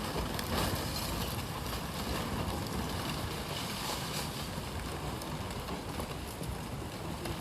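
Steady rushing of a swollen, flooding river.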